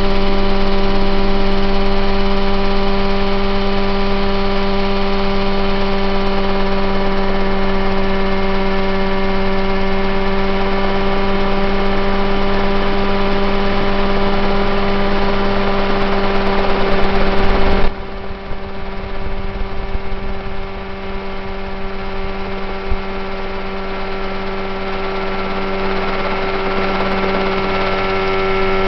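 Mosquito ultralight helicopter's engine and rotor running with a steady, even drone. About 18 seconds in the sound drops suddenly in loudness while its pitch holds steady.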